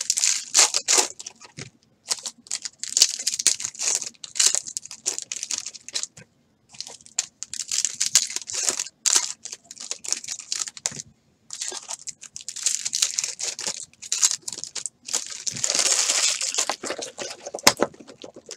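Baseball card pack wrappers being torn open and crinkled: irregular bursts of ripping and rustling with short pauses between, and a longer rustle near the end.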